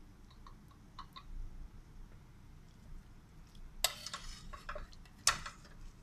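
Metal ladle scraping and clinking against a stainless steel pot while scooping chunks of stew: a few light ticks first, a scraping clatter about four seconds in, then one sharp clink.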